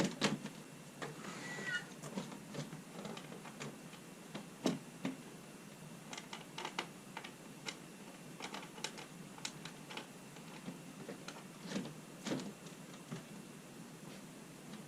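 Plastic window-kit panels and brackets being handled and fitted against a window: scattered light clicks and knocks at irregular spacing, with a brief high squeak a second and a half in.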